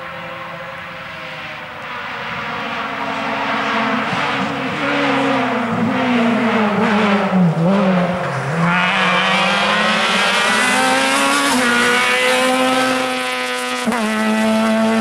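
Ford Fiesta rally car at speed, its engine note rising and falling with gear changes and throttle lifts, dipping about halfway through and then climbing steadily as it comes past. The note changes abruptly near the end where the footage cuts to another stretch of the stage.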